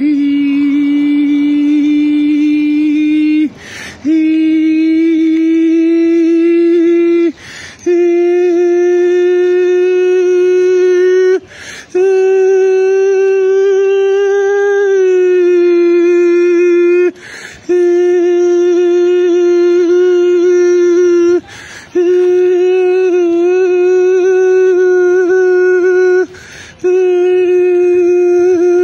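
A man's voice holding long, steady wordless notes, about seven of them, each three to five seconds long, with a quick breath between them. The pitch creeps up a little over the first half and wavers briefly a couple of times.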